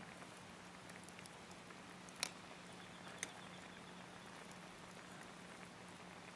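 Pot of soup simmering over the camp fire: a faint steady hiss and patter, with two sharp crackles about two and three seconds in.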